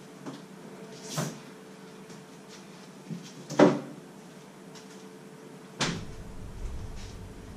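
Kitchen cupboard doors knocking shut: three sharp clunks about two and a half seconds apart, the middle one the loudest, followed by a low rumble near the end.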